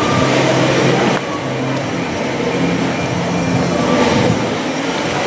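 Chair-swing carousel ride spinning: a steady mechanical rumble and rush of the running ride, with a low hum that comes and goes.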